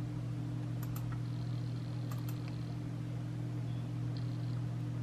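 A steady low hum, with a few faint clicks, like a computer mouse, about a second and two seconds in.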